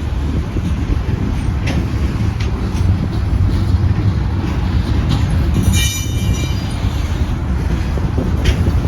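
Train rolling past with a steady low rumble and a few sharp clicks. A brief high-pitched wheel squeal comes about six seconds in.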